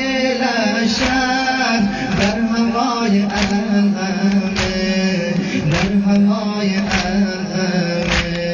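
Male voice chanting a mourning lament (noha), held notes over a steady beat of chest-beating strikes (sineh zani), one strike about every 1.2 seconds.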